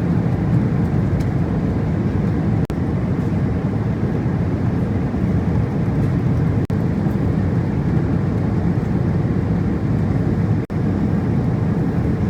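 Steady low rumble of a Boeing 777-300ER in flight, heard inside the passenger cabin: engine and airflow noise with no pitch to it. It is broken three times by momentary dropouts.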